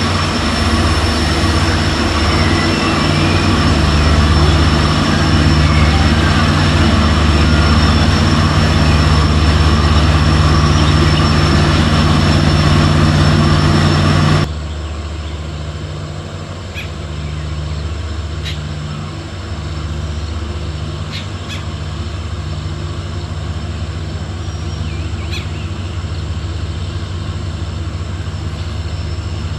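WDP4B diesel-electric locomotive's 16-cylinder two-stroke diesel engine running steadily with a deep, even hum as the locomotive approaches. The level drops sharply about halfway through, and the engine continues quieter, with a few sharp clicks.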